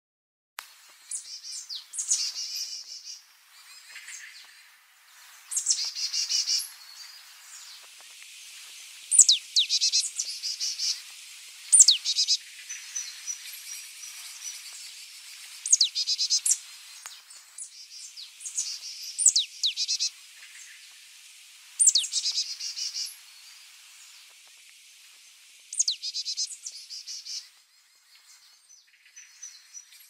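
A songbird singing, repeating a short high phrase about every three to four seconds. Each phrase is a quick sharp whistle followed by a rapid trill, with softer chirps in between.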